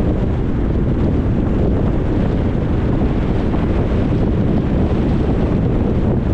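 Steady road noise from a car driving: a constant low rumble of tyres and wind, with wind buffeting the microphone.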